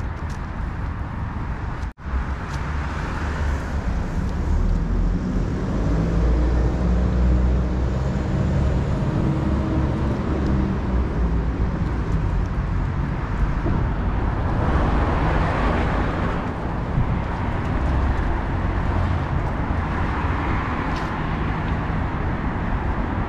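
City street traffic: cars driving past, with an engine's low hum building through the middle and the hiss of tyres swelling as vehicles pass, twice. The sound cuts out for an instant about two seconds in.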